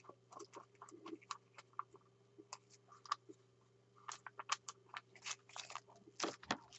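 Wooden stir stick scraping and tapping against the inside of a plastic mixing cup as resin is stirred and the flakes in it are broken up: faint, irregular small clicks and scrapes, busier in the second half.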